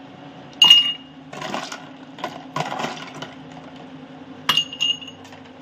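Ice cubes dropped into textured glass tumblers, clinking against the glass with a short ringing note: one loud clink about half a second in, then two more close together near the end.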